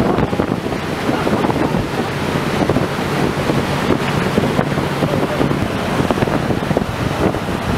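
Wind buffeting the microphone on the deck of a moving boat, over the rush of its wake and a steady low engine hum.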